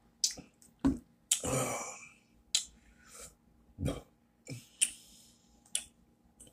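Close-up mouth and throat noises from a man who has just drunk from a glass: about eight short sounds, with a longer breathy one about a second and a half in.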